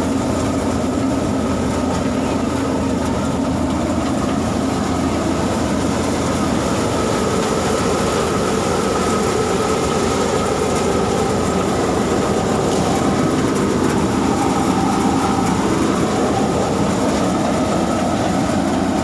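Swaraj 843 XM tractor's three-cylinder diesel engine running under steady load, driving a tractor-mounted thresher that is threshing black gram. A loud, continuous churning of machinery over the engine, with a slight change in pitch about midway.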